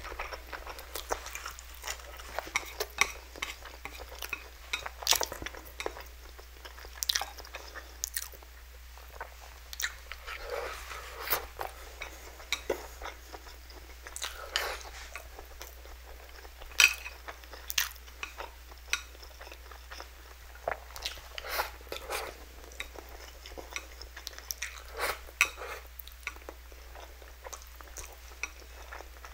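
Close-miked eating: slurping and chewing spicy instant noodles, with many short, irregular mouth smacks and clicks of wooden chopsticks against a glass bowl.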